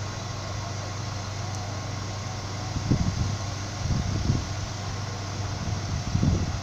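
Steady low hum of running equipment on passenger trains standing at a station platform, with three short low rumbles over it about three, four and six seconds in.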